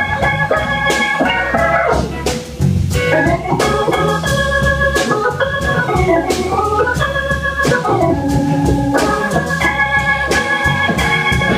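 Live blues band playing, with held organ chords from the keyboard out front over bass, drums and cymbal strikes. The music thins briefly about two seconds in, then the organ chords return.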